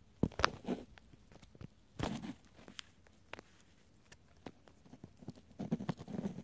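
Footsteps scuffing and crunching on sandy desert ground, in short groups about half a second in, about two seconds in, and more near the end, with scattered small clicks between.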